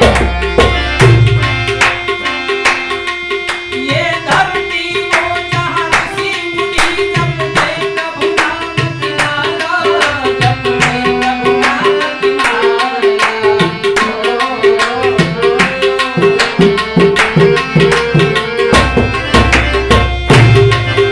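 Harmonium playing a song melody over sustained notes, with a steady tabla rhythm.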